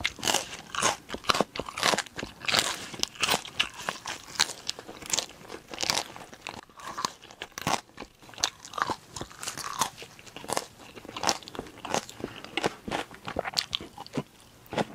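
Close-miked chewing of crunchy food, with irregular crisp crunches coming a couple of times a second.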